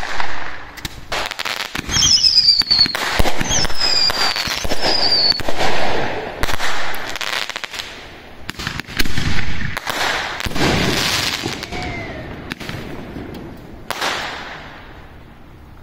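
Fireworks going off in quick succession: sharp bangs and dense crackling, with a few falling whistles between about two and five seconds in. The bursts thin out and fade near the end.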